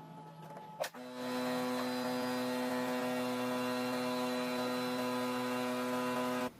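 A steady electrical hum that starts with a click about a second in and cuts off suddenly near the end.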